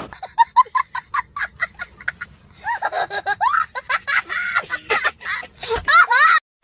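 A young child laughing hysterically in high-pitched squeals: quick bursts of laughter, then longer drawn-out squealing laughs, stopping suddenly near the end.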